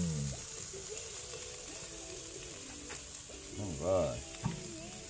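Steaks sizzling on a charcoal grill grate, a steady hiss. A short voice sound cuts in about four seconds in.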